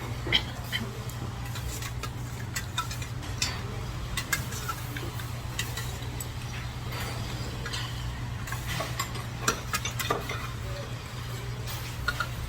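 Chopsticks and spoons clicking and scraping against bowls and plates at a meal, in scattered small knocks, over a steady low hum and hiss.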